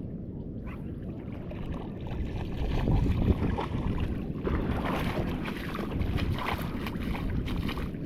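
Wind buffeting the microphone with a steady low rumble, and the wash of breaking surf swelling about three seconds in.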